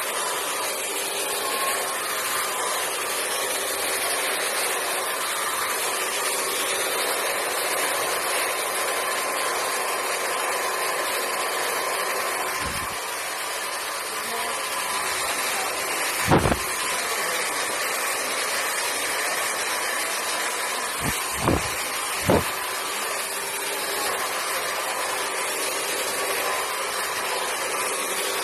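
Dragon 3000 hair dryer running steadily: an even rush of blown air with a faint whine from its motor. A few short knocks break in past the middle, two of them close together.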